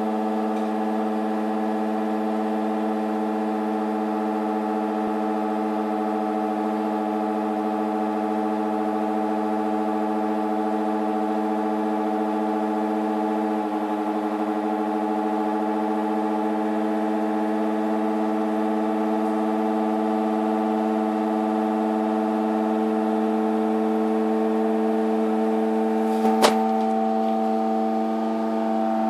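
LG F1403RD washer dryer making a really loud, steady hum of several pitches held at once, of unknown cause. A single sharp click sounds near the end.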